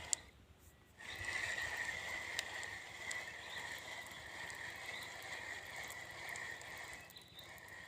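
Steady chorus of calling frogs, a constant high-pitched drone. A sharp click comes right at the start, and the chorus drops out for about a second just after it.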